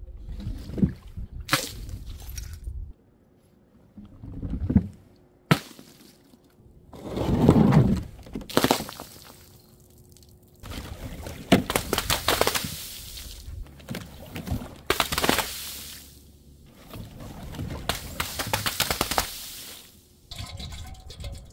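Glass bottles and jars dropped and shattering one after another, about eight separate crashes, some followed by the rattle of falling shards, with liquid splashing among them.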